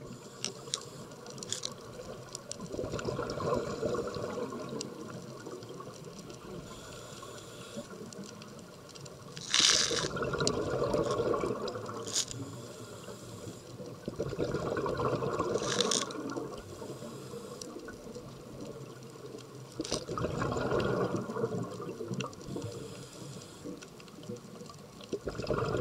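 Scuba diver breathing through a regulator underwater: a rumble of exhaled bubbles swells and fades about every five to six seconds, with a short hiss of inhalation between.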